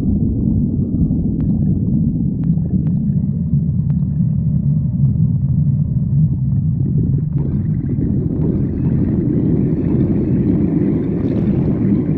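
A hungry stomach growling: a continuous low rumble that spreads upward into higher, gurgling sound from about seven seconds in.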